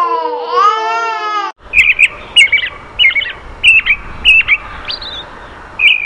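An infant crying, cut off abruptly about one and a half seconds in. Then a peach-faced lovebird gives a run of short, sharp chirps, one every half second or so.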